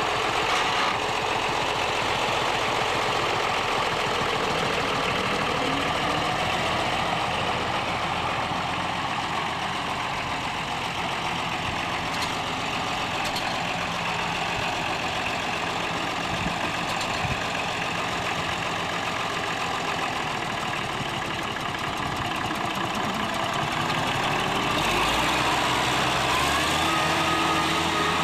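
1953 Oliver 88 tractor's six-cylinder diesel engine running steadily, its note changing near the end.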